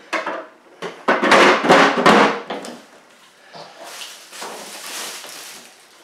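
Plastic water bucket of a Frigidaire dehumidifier being slid into the unit, scraping and knocking into place about a second in. A quieter rubbing follows in the second half.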